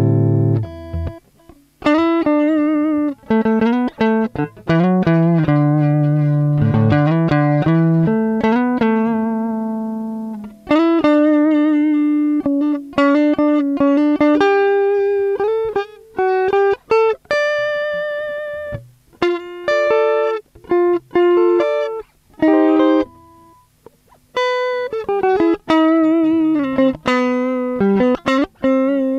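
Clean electric guitar: a Telecaster played through its Ganee neck pickup straight into an audio interface, with no amp or effects. It plays a mix of single-note lines and chords that ring out and fade, with vibrato on some held notes. This is the raw tone of the neck pickup, which the owner calls warm.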